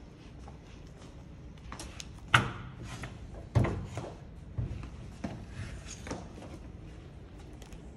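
Several knocks and thumps: two louder ones about two and a half and three and a half seconds in, then a few lighter ones.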